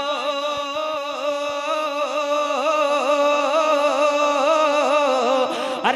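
A man singing a naat solo, holding one long note with a wavering vibrato for about five and a half seconds, then breaking off near the end with a short "arey".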